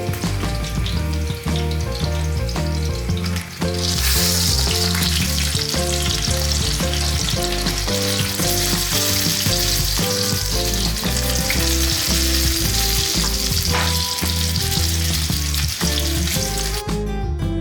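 Food sizzling as it fries in hot oil, the sizzle coming in suddenly and loudly about four seconds in and dropping away near the end, over background music.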